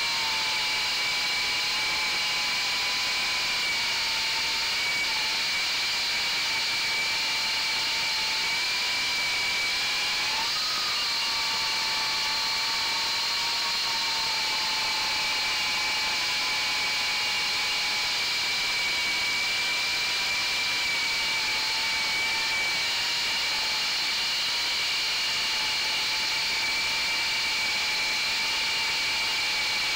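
Brushless motors and propellers of an FPV quadcopter whining steadily in flight, heard close up from a camera on board. The pitch wavers a little with the throttle, with a brief rise about ten seconds in.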